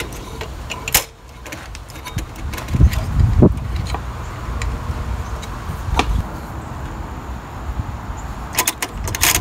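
Scattered metallic clicks and light knocks from handling a kerosene heater's wick-adjuster mechanism and burner parts. There are a couple of dull thumps about three seconds in and a quick run of clicks near the end.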